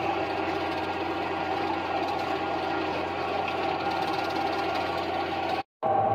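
New Holland tractors' diesel engines running steadily while the tractors work the chopped-corn silage pile. The sound cuts out briefly near the end.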